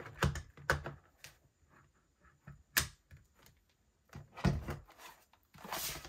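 Plastic clicks as a battery is pushed into its bay on a Dell Latitude E6440 laptop and latches, with one sharp click about three seconds in. Then knocks and rubbing as the laptop is picked up and turned over.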